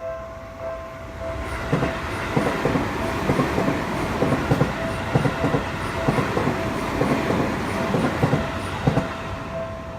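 A Japanese level-crossing warning bell dinging about twice a second while a Seibu Shinjuku Line train passes through the crossing, about a second and a half in, its wheels clattering over the rail joints. The train noise fades near the end, leaving the bell ringing.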